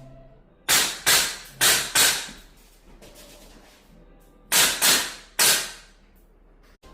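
Gas-powered airsoft rifle firing seven sharp shots in two quick strings: four in the first two seconds, then three more a couple of seconds later.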